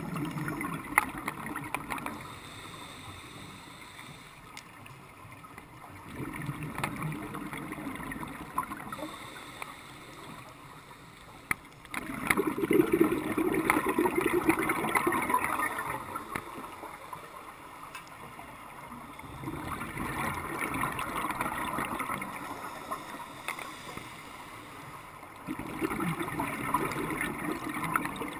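Scuba regulator exhaust bubbling as the diver breathes out underwater: five bursts of bubbles, each two to four seconds long, about every six seconds, the loudest about halfway through.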